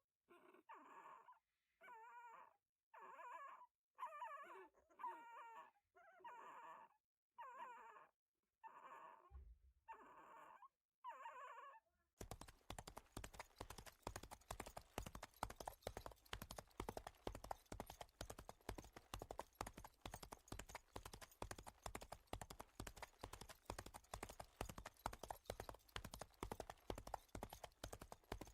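A dog yipping and whimpering in short pitched calls, about one a second. About twelve seconds in, this gives way to the rapid clip-clop of a horse's hooves.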